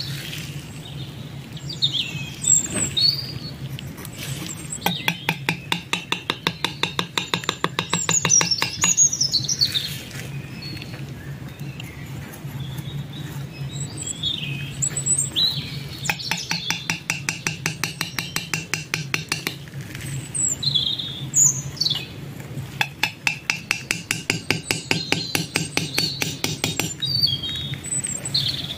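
Birdsong: scattered short chirps and whistles, with three runs of rapid repeated notes of about four seconds each, over a steady low hum.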